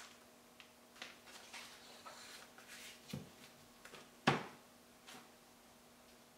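Hands working at a worktable with clay, a plastic bag and a metal tool: scattered rustles and light clicks, a dull thud about three seconds in, and a sharper knock on the table a little after four seconds.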